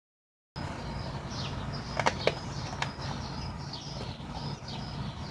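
A Labrador chewing a raw chicken leg, with a few sharp cracks a couple of seconds in, over a low steady hum and small birds chirping.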